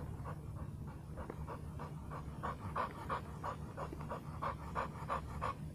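American Staffordshire Terrier panting hard with its mouth open, a quick even rhythm of about three breaths a second, over a low steady rumble.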